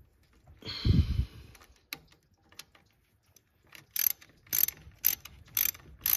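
Socket ratchet on an extension backing out a thermostat-housing bolt, its pawl clicking in short bursts about twice a second with each swing. A loud clunk about a second in.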